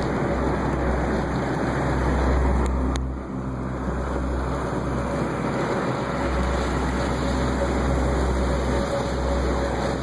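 Steady rushing noise with a deep low rumble and a faint steady hum: a moving vehicle with wind buffeting it. The noise dips briefly a few seconds in.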